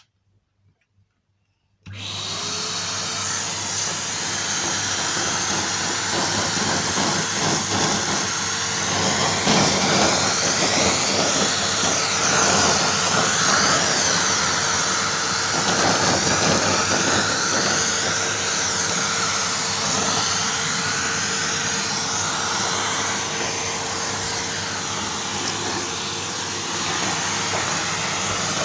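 Henry Hoover cylinder vacuum cleaner switched on about two seconds in: the motor spins up with a short rising whine, then runs steadily with a constant hum and loud rushing airflow, the suction noise shifting as it is used.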